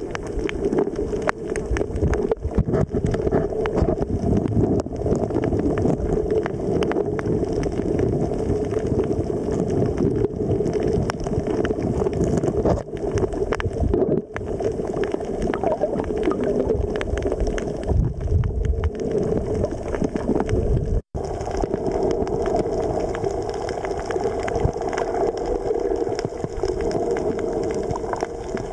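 Steady low rumble and gurgling water noise recorded underwater, with a brief dropout about 21 seconds in.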